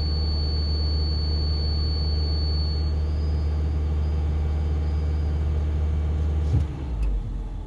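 Toyota Tercel running with its air conditioning on, the condition in which its abnormal A/C noise is reproduced: a steady low hum with a thin high whine that fades out about three seconds in. Near the end there is a short clunk and the steady hum falls away.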